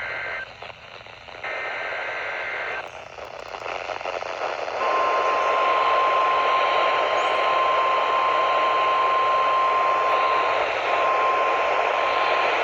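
NOAA Weather Radio broadcast heard through heavy radio static. It opens with two short bursts of the two-tone SAME digital alert header, then a steady 1050 Hz warning alarm tone comes in about five seconds in. The alarm drops out briefly near the end, a sign of weak reception.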